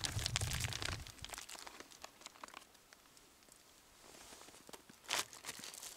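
Close handling noise: rustling and crinkling with small clicks as a bottle and cup are handled. It is busiest in the first second or so, quieter in the middle, and has one short sharp rustle about five seconds in.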